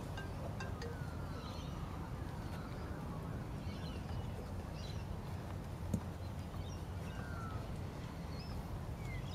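Birds chirping now and then over a steady low rumble, with a single sharp thud about six seconds in.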